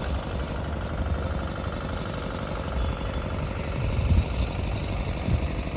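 An engine running steadily at idle, a low rumble with a constant background hum.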